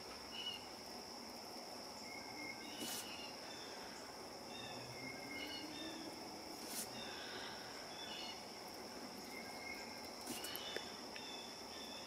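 Faint background ambience: a steady high insect-like drone with scattered short bird chirps, and a few soft clicks.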